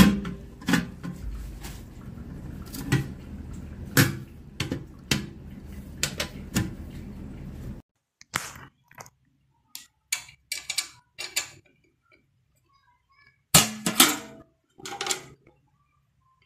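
Steel ammo box being handled: the lid, latch and box walls give a string of sharp metal clicks and clanks at irregular intervals, with the loudest knocks a little before the end.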